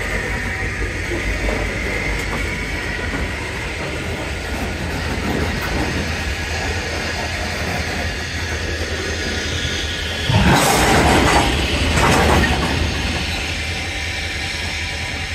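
Freight train with an EMD GP40-2 diesel locomotive running steadily, its engine giving a low rumble. About ten seconds in there is a sudden loud rushing burst lasting about a second, and a shorter one a second and a half later.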